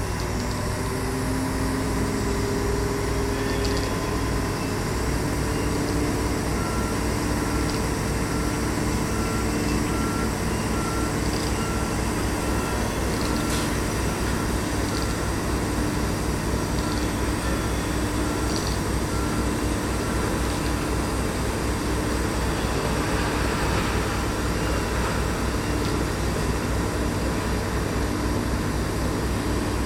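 Heavy machinery's warning alarm beeping in a steady series, about once a second, over the low drone of a running diesel engine.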